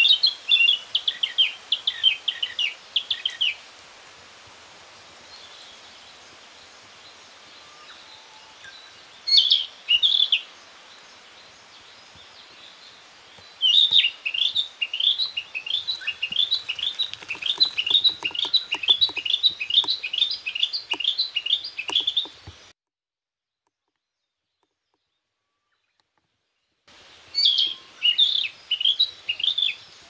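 Male narcissus flycatcher singing: short phrases of high whistled notes, then a long run of about twenty-five quick repeated notes. The sound cuts out completely for about four seconds before one more short phrase.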